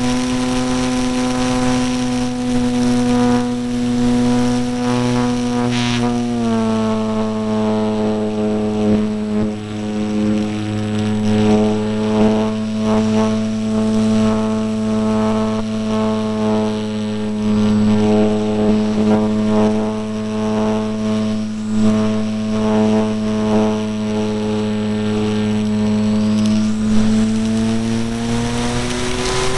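The electric motor and propeller of an E-flite Apprentice RC trainer plane, heard from a camera on its fuselage, give a steady buzzing whine over rushing air. The pitch drops a little about six seconds in and climbs again near the end as the throttle changes.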